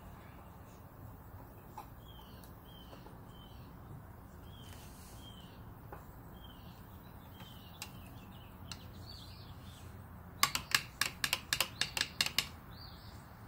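A bird chirping over and over, a short falling chirp about twice a second. About ten seconds in, a quick run of about a dozen sharp clicks, the loudest sounds here.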